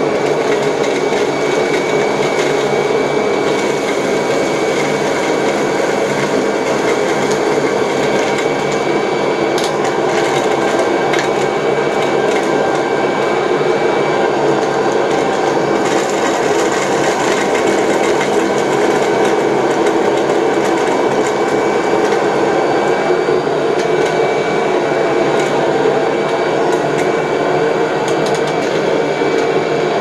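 Upright vacuum cleaner running on suction alone, its brush roll and belt removed: a steady motor hum with a high whine, and a few sharp clicks as popcorn pieces are sucked in.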